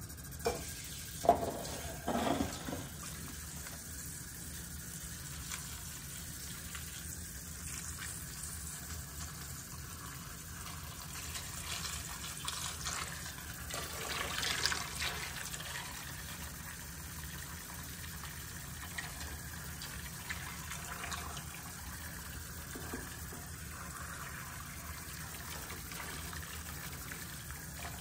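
A few knocks of a bowl being moved and set down on a stone countertop in the first couple of seconds, then water from a kitchen faucet sprayer pouring steadily into a glass bowl of dry pinto beans to cover them for soaking, swelling louder about halfway through.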